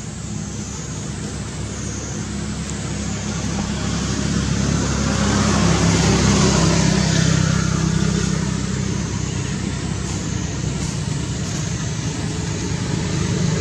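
Motor vehicle engine running steadily, with a low hum and road hiss that grow louder to a peak about six seconds in, ease off, then rise again near the end.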